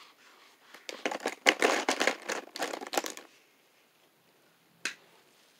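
Marker drawing quickly back and forth on a sheet of paper, a fast run of short scratchy strokes tracing a zigzag for about two seconds. A single sharp tap comes near the end.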